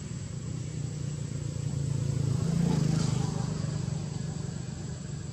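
Steady low hum of road traffic. It swells as a vehicle passes about three seconds in, then fades.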